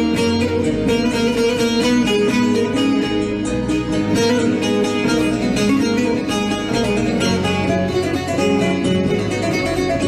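Instrumental opening of an arabesk song: plucked string instruments play the melody over a steady bass line, with no singing.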